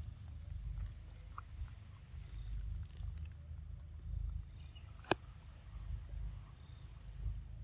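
Wind rumbling on the microphone, with one sharp click about five seconds in and a few faint short chirps.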